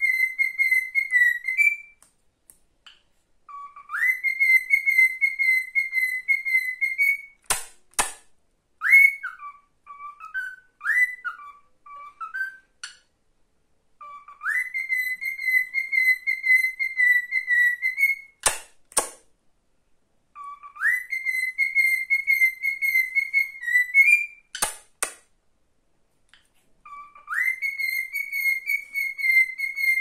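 Male cockatiel whistling a trained tune. A phrase slides up into a long, warbling held note and comes again about every six or seven seconds, with a run of short up-and-down notes in between. A few sharp clicks fall in the gaps between phrases.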